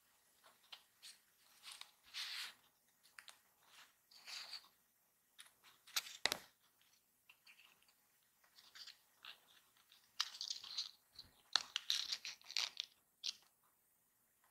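Close-up rustling, crinkling and light tapping of thin printed card as small paper toy parts are handled and fitted together. There is a sharp click about six seconds in and a busier stretch of rustling near the end.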